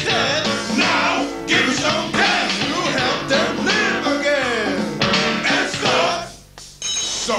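Rock-style song with singing and guitar, dropping away briefly near the end before coming back in.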